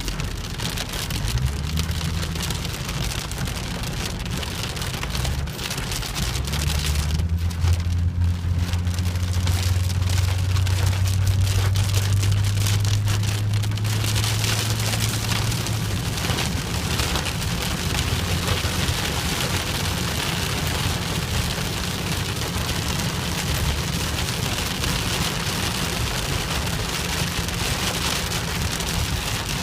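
Rain falling steadily, with a low rumble underneath that swells from about seven seconds in and fades out about halfway through.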